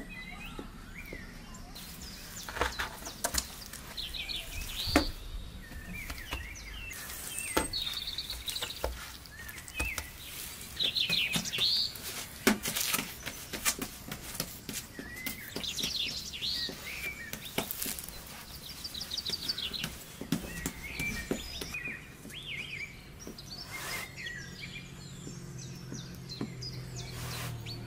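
Birds chirping and singing in short trilled phrases, with scattered sharp clicks and knocks throughout. A low steady hum comes in during the last few seconds.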